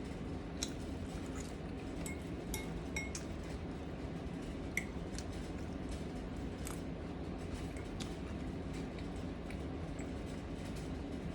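Cutlery clinking and scraping in a bowl of food while eating: scattered light clicks and a few short ringing clinks over a steady low room hum.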